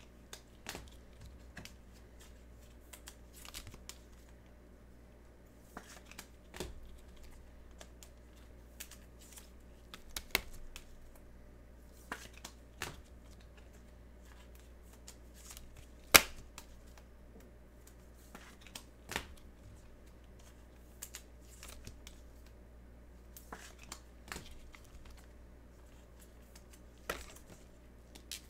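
Trading-card packs and cards being handled: scattered light clicks and crinkles of wrappers and cards, with one sharper click about halfway through.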